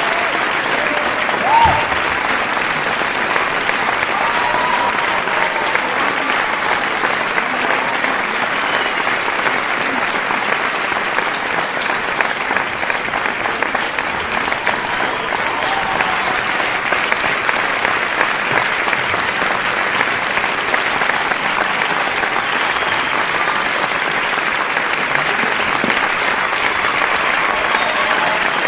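Crowd applauding steadily: a dense, even wash of many hands clapping, with a few faint voices calling out within it.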